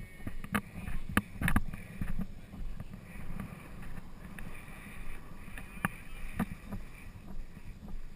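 A horse being ridden over grass, heard from the rider's head-mounted camera: a low rumble of movement and wind on the microphone with irregular knocks and thuds, the sharpest about a second and a half in and again near six seconds.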